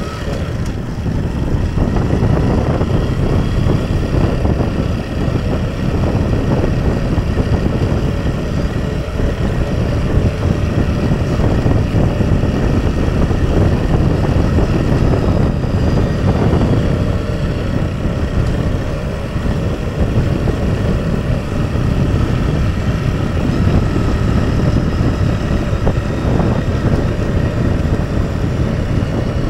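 Motorcycle being ridden: its engine runs steadily under a continuous rush of wind and road noise, heaviest in the low end.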